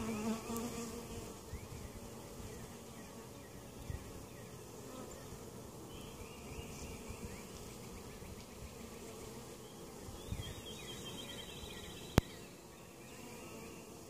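Honey bees buzzing steadily over an open hive box, with one sharp click near the end.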